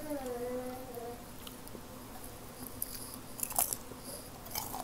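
Close-miked mouth sounds of eating pancake by hand: soft chewing with a few sharp wet smacks and clicks, the loudest about three and a half seconds in and again near the end.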